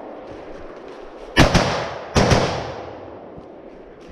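Gunshots fired in two quick pairs of double taps, about a second and a half in and again just after two seconds, each shot followed by a long echo fading away.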